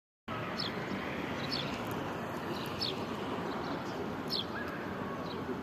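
Steady rush of flowing river water, with a small bird giving short, high, downward chirps about once a second, five times.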